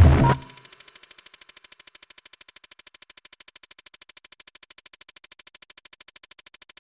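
Background electronic music: the full beat drops away about half a second in, leaving a rapid, even synthesized pulse of ticks.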